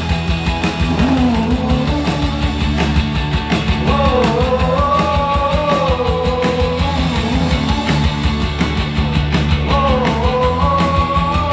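A rock band playing live: drums, electric bass, acoustic guitar and keyboard, with a melody line that slides up and down over a steady beat.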